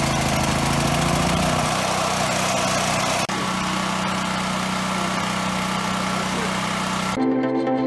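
Westinghouse 7500W dual-fuel generator's single-cylinder gasoline engine running steadily just after a choked cold start; about a second and a half in, its low rumble drops away and it settles into a smoother, steadier run. Near the end, music comes in.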